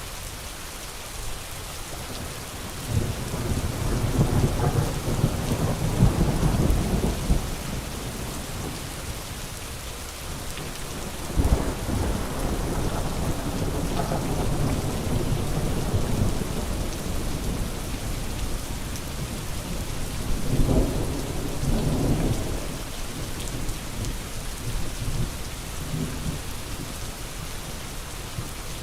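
Steady rain with rolling thunder: a long rumble a few seconds in, a sharper clap near the middle that rolls on for several seconds, and a shorter rumble later.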